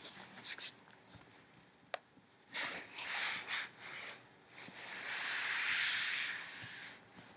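Hand scratching and rubbing through a curly-coated dog's fur, with blanket and clothing rustling: a scratchy, rasping noise in two stretches, a shorter one about two and a half seconds in and a longer, louder one from about five seconds until shortly before the end, with a few light clicks in the first second.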